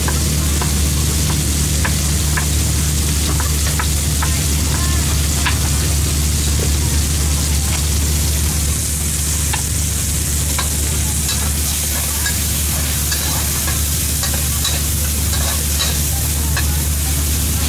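Stir-frying in a wok: food sizzling in hot oil with a steady hiss, scattered clicks and scrapes of the spatula, over a steady low hum.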